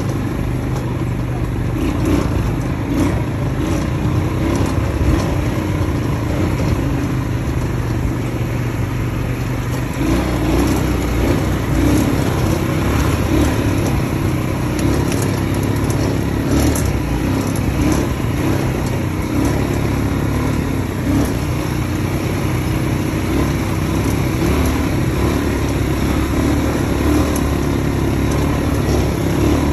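ATV engine running steadily while riding, getting louder about ten seconds in.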